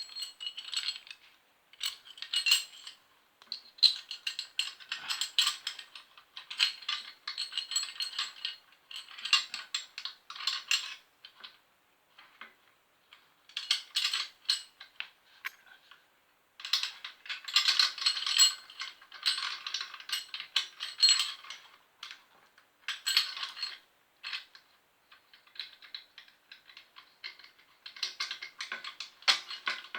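Small metal parts and hardware clinking and rattling as they are handled and fitted while a motor mount is put onto a bicycle, in irregular runs of sharp clicks with brief pauses.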